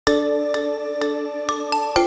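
Intro music of struck, bell-like mallet notes, about two a second, each note ringing on as a sustained chord.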